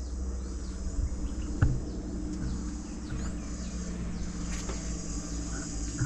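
Insects chirring steadily in a high-pitched chorus, over a low steady hum, with a single soft knock about a second and a half in.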